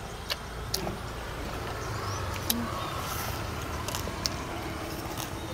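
A motor vehicle running as a low steady rumble that swells from about two seconds in, with a few sharp clicks of cutlery.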